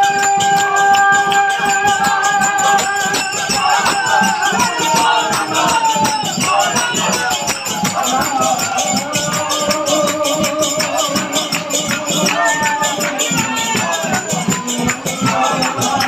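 Devotional kirtan: hand cymbals (kartal) jingling in a fast, steady beat over a barrel drum, with voices singing, one note held for the first few seconds and then a wavering chant.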